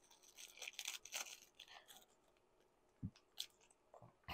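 Faint crinkling and tearing of a thin plastic bag being pulled open by hand, with a few light clicks in the second half.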